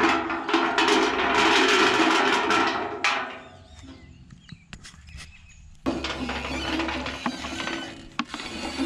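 Coffee depulping machine running as freshly picked coffee cherries are fed through, stripping the pulp from the beans, a dense mechanical churn. It stops about three seconds in and starts again about six seconds in.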